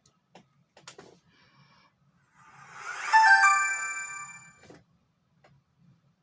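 T-Mobile Revvl V 5G smartphone's startup chime playing from its speaker as it boots: a short electronic chime of several ringing tones that swells up about two seconds in and fades away over about a second and a half. A few light clicks come before it.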